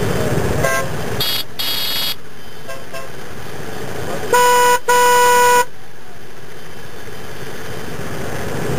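Motorcycle horns honking at a stop among idling bikes. Two short higher-pitched beeps come about a second in. A little past four seconds in come two loud honks of a lower-pitched horn, the second one longer.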